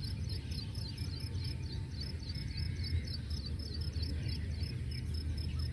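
Outdoor dawn ambience: insects chirping in a steady high pulse of about four to five a second, with a few faint bird chirps over a low steady rumble.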